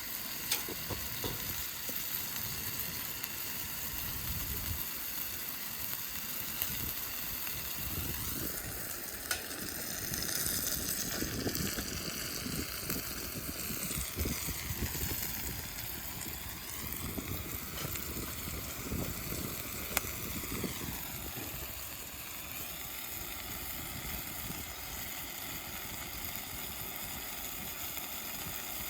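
Food frying in hot oil in a pan, a steady sizzle. A louder rushing sound with a sweeping tone swells in about eight seconds in and fades away by about twenty-two seconds.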